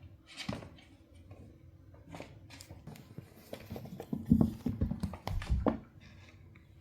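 Maine Coon kittens scampering and scuffling on the floor: scattered light patters and knocks, with a run of heavier thuds from about four to six seconds in.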